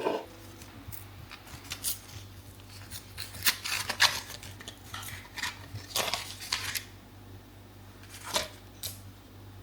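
Kitchen utensils and dishes clinking and tapping: a string of irregular light knocks and clinks, the sharpest about three to four seconds in, over a faint steady low hum.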